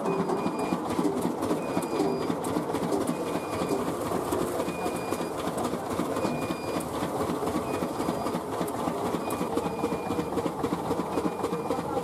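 Poha (flattened rice) machine running: steady rapid clattering as its rotating pan and pressing head flatten paddy, with short high squeaks recurring every second or so.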